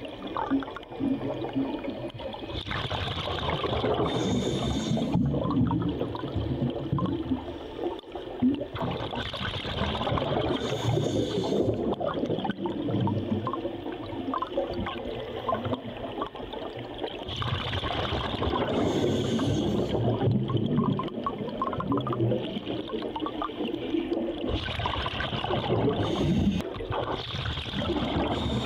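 Scuba diver breathing through a regulator underwater: surges of gurgling exhaust bubbles repeating about every seven to eight seconds, some with a brief high hiss.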